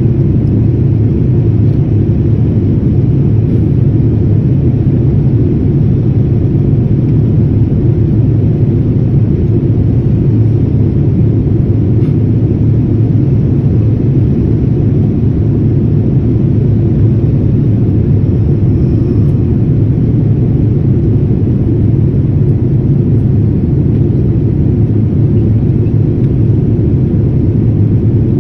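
Airliner cabin noise heard from a window seat: the steady, loud, deep rumble of the jet engines and the air rushing past the fuselage in flight.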